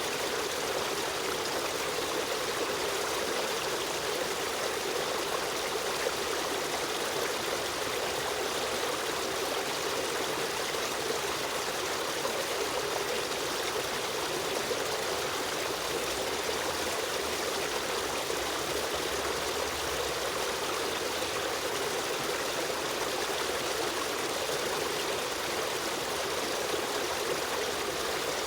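Steady flowing water of a stream running over stones, a continuous even rush with trickling.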